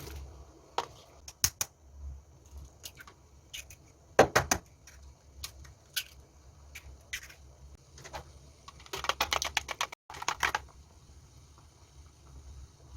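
Kitchen work sounds: scattered sharp clicks and knocks of utensils and dishes, with a quick flurry of strikes about four seconds in and a longer rapid run of strikes around nine to ten seconds in.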